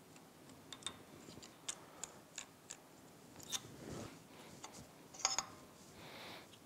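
Light metallic clicks and ticks as the metal timing-belt drive sprocket is worked loose and slid off the crankshaft of a Yamaha F225 outboard powerhead by hand, with a brief cluster of ringing clinks about five seconds in.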